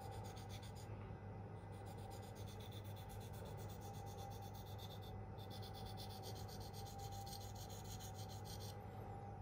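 Spyderco Endura's K390 steel blade being stroked quickly back and forth on a Venev F400 diamond sharpening stone, a faint, even, rhythmic scraping. It comes in three runs with short pauses about a second in and about five seconds in. The strokes are apexing the edge and cleaning up the scratch pattern.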